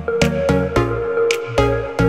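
Electronic music with a steady beat, a bass line that changes note every half second or so, and a held synth tone above.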